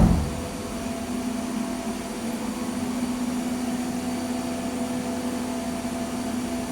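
Hydraulic paper baler's electric power pack humming steadily as its motor and pump run, with a short low thump right at the start.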